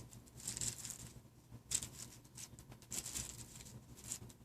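Faint, irregular clicks and rustles of small plastic phone parts being handled, a handful of light scratchy taps a second or so apart.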